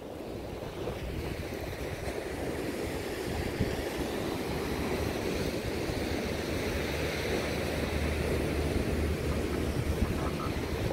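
Wind buffeting the microphone over surf breaking on a shingle beach, the wind rumble growing a little stronger through the clip.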